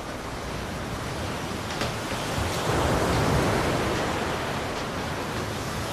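Sea surf breaking and washing against rocks: a steady rushing that swells to its loudest about three seconds in.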